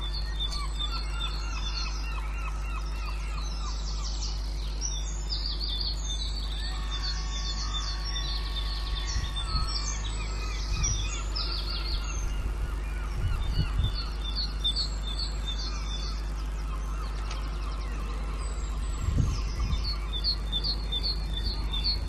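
Dawn chorus of British garden birds: several songbirds singing at once, with rapid repeated chirps and varied trilling phrases, over a steady low hum. A few short low sounds break in, the loudest about nineteen seconds in.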